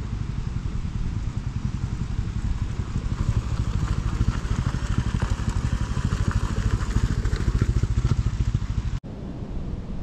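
Royal Enfield Classic 350's single-cylinder engine running at low speed with a fast, even exhaust thump, growing louder toward the end as the bike nears. About nine seconds in, it drops suddenly to a quieter, steadier engine sound.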